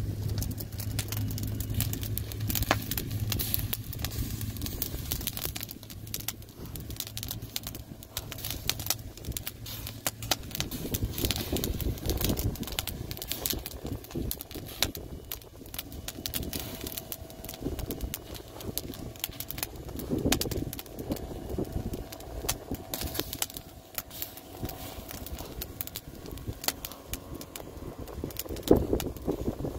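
Wood fire crackling and popping: split logs burning in an open fire pit, with many sharp irregular snaps. A low steady hum runs under it for about the first ten seconds.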